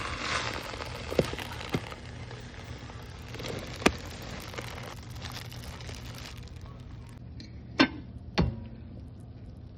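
Kitchen cookware being handled: a handful of sharp knocks and clinks of pots, dishes or utensils, the two loudest close together near the end, over a steady hiss.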